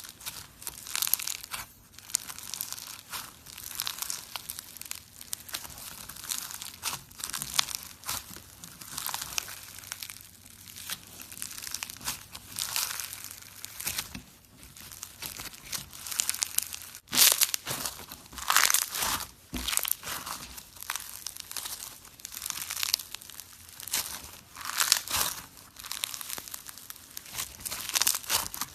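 Slime being squished and stretched by hand, giving irregular wet crackling and crinkling pops about once a second.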